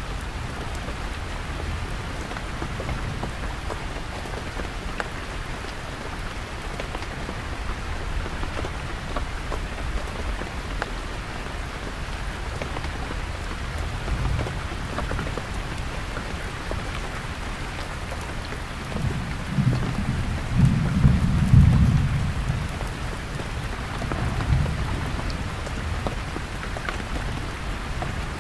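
Heavy rain falling steadily on a canvas tent. Low rumbles of thunder roll underneath, the loudest swelling and fading about two-thirds of the way through.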